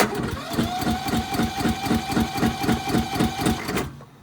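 Riding lawn mower's electric starter cranking its 535 cc twin-cam engine on a cold start: a steady starter whine with about four or five even compression beats a second, cutting off after about four seconds without the engine catching.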